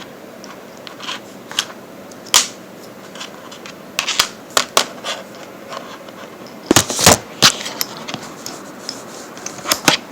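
Scattered small clicks and taps of a screwdriver and screws working on a laptop, with a quick cluster of louder clicks about seven seconds in.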